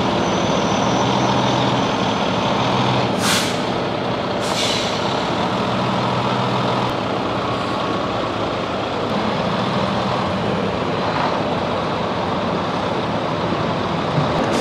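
A Volvo semi-truck tractor with its trailer reversing slowly, its diesel engine running steadily. There are two short hisses of air from the air brakes about three and four and a half seconds in.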